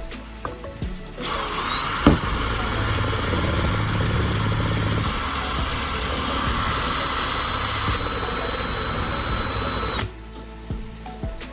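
Power drill running with a step drill bit pressed against glass for about nine seconds: a steady high whine over grinding, with a sharp knock a second or so after it starts. The step bit does not get through the glass.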